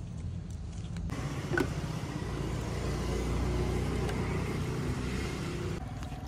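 Sugarcane juice crusher machine running as cane is fed through it, a dense mechanical grinding noise that starts about a second in, with a sharp crack about a second and a half in.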